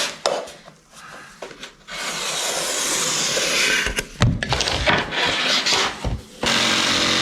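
Laminate floor planks scraping and knocking as they are handled and fitted, with scattered clicks. About six and a half seconds in, a power tool starts and runs steadily.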